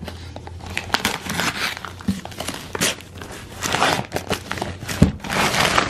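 Brown kraft wrapping paper crinkling and rustling as it is torn and pulled off a cardboard gift box, with a soft thump about five seconds in.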